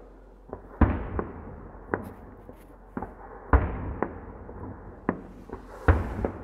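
Aerial fireworks bursting: three deep booms, each trailing a rolling echo, with several sharper, smaller reports between them.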